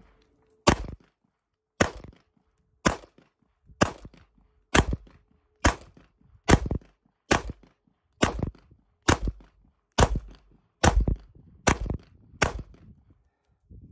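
FMK 9C1 Gen 2 9mm striker-fired pistol fired in a string of about fifteen shots, roughly one a second, coming quicker near the end.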